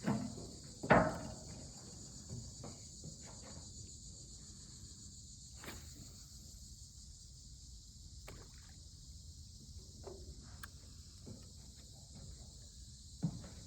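Steady high chorus of night insects such as crickets, with scattered knocks and thumps over it, the loudest a thump about a second in.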